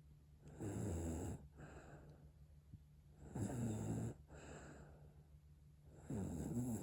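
A ten-month-old baby snoring: three loud snores about two and a half to three seconds apart, each followed by a softer breath.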